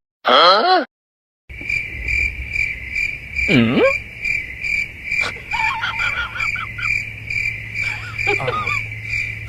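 Insect chirping, like crickets: a steady, rapidly pulsing high trill that starts about a second and a half in, over a low hum. A few short sliding calls sound over it, one falling call about two seconds later and more near the end.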